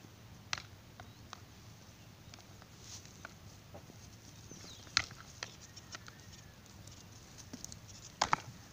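Goats butting heads: sharp cracks of horns and skulls knocking together. A few light knocks come in the first second or so, a loud crack about five seconds in, and a loud double crack near the end.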